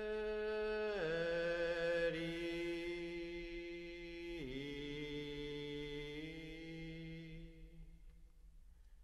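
A single low voice chanting in long held notes, dropping in pitch at about a second in and again midway, then fading away near the end.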